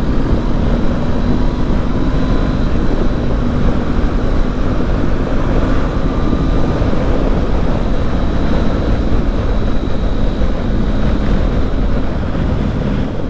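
2019 Honda CB500X parallel-twin motorcycle cruising steadily at highway speed: an even engine drone under a loud rush of wind on the camera microphone.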